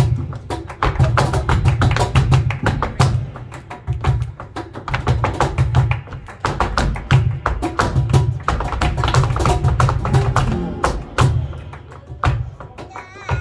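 Flamenco zapateado: a male dancer's shoes strike the stage in rapid heel-and-toe patterns, with the palmeros' sharp hand-clapping and a flamenco guitar behind them. The strokes come thick and fast and thin out into sparser accents at times.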